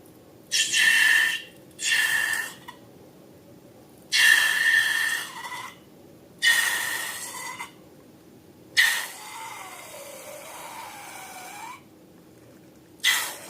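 Air hissing out of a balloon's neck in about six short bursts, each with a thin whistling tone. After the fifth burst a quieter wavering squeal drifts up and down in pitch for about three seconds.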